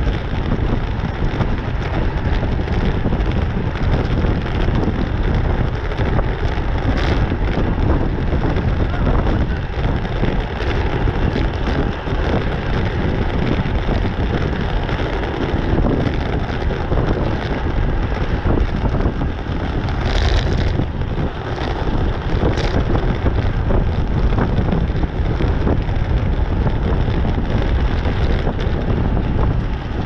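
Steady wind rushing and buffeting over the microphone of a camera on a road bike ridden at race speed, about 28 mph. A few brief sharper noises cut through it, about 7 and 20 seconds in.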